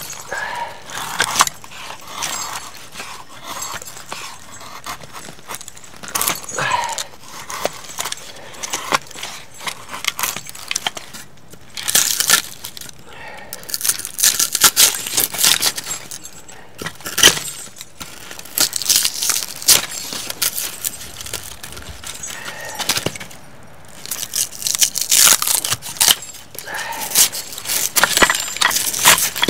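A knife shaving thin curls off split firewood and scraping and peeling stringy bark from a log. It comes in bursts of short rasping, crackling strokes.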